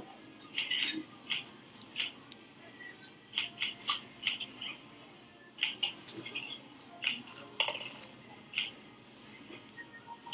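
Camera shutters clicking repeatedly, often several shots in quick succession, as photos are taken.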